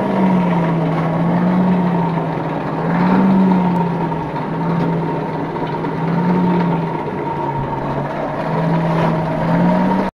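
Forge fire under forced air, borax being heated: a steady roar with a low hum that slowly wavers up and down in pitch, cutting off suddenly near the end.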